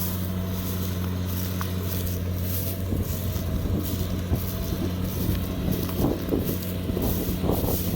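Kubota DC70 combine harvester's diesel engine running steadily at working speed, a low even hum. From about three seconds in, irregular clattering and rustling bursts rise over it.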